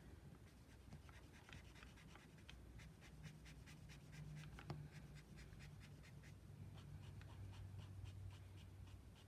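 Faint scratching of a clear blender brush pen's felt tip stroking over smooth Bristol paper, an irregular run of soft ticks as the ink is blended.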